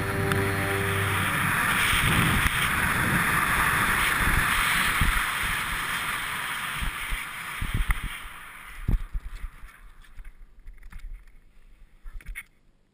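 Wind rushing over the microphone of a speed-riding pilot's camera during a fast, low flight under a small wing. It dies down as the wing slows for landing, and a few thumps come about eight to nine seconds in at touchdown.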